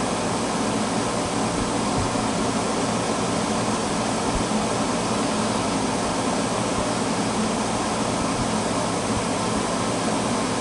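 1971 Montgomery Ward Signature window air conditioner running steadily: the fan blowing air over the hum of its reciprocating compressor.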